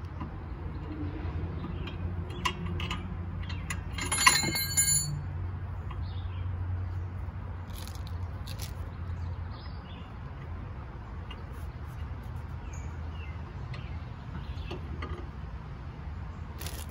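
Metal hand tools clicking and clinking on a brake line fitting at the caliper, with one bright ringing clink about four seconds in, over a steady low hum.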